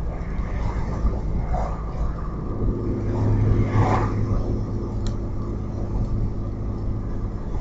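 Audi A4 2.8-litre 12-valve V6 running with a low, steady rumble that swells briefly about four seconds in. The exhaust leaks just after the flex pipe, ahead of the catalytic converter, leaving one bank's exhaust essentially open.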